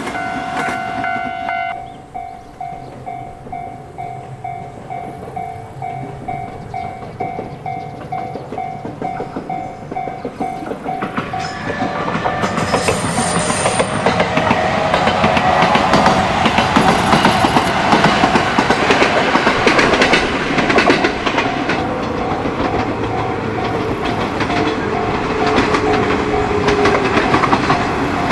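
JR 115 series electric train approaching and running past, its wheels clattering over the rail joints, the clatter growing louder from about halfway through. A pulsing alarm tone rings behind it through the first half.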